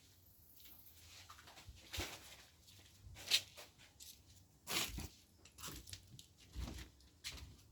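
Footsteps crunching on a rough outdoor path, about six uneven steps roughly a second apart.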